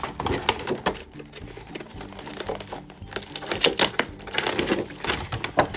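Clear plastic packaging and a cardboard box insert crinkling and crackling as they are handled and pulled apart to free a toy doll. The crackles are irregular and sharp, loudest around the middle and just before the end.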